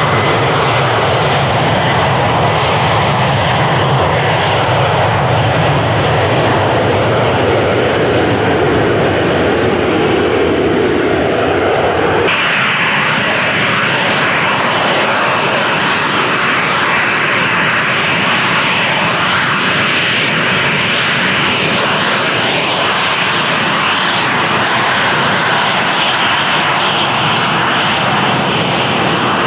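Turbofan jet engines running steadily. First comes an Embraer 190's CF34 engines on the runway. After an abrupt cut about twelve seconds in, a Boeing 737-800's CFM56 engines are heard as it taxis, with more high-pitched whine and less low rumble.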